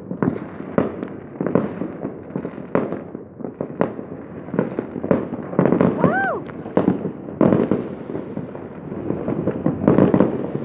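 Fireworks going off: aerial shells and firecrackers give a dense run of sharp bangs and crackling pops, with no let-up.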